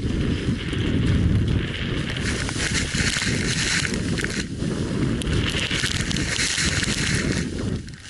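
Strong wind buffeting the microphone in a snowstorm, low and gusty, with two swells of hissing snow as skis push through deep powder.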